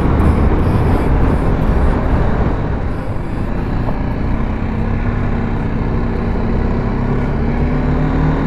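BMW G310GS single-cylinder motorcycle being ridden over a rough, broken road: engine running under heavy wind and road noise. The engine note climbs slowly over the last few seconds.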